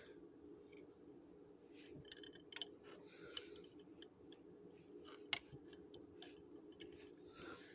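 Faint clicks and taps of a small die-cast toy boat and hard plastic pieces being handled and fitted together, a handful of scattered clicks with the sharpest about five seconds in, over a steady low hum.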